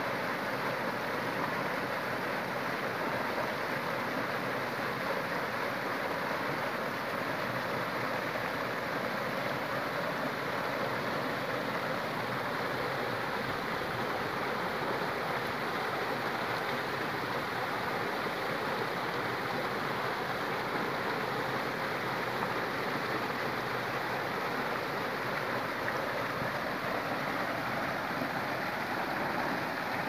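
Man-made rock waterfall: water pouring over a short drop and splashing into a pool below, a steady, unchanging rush of falling water.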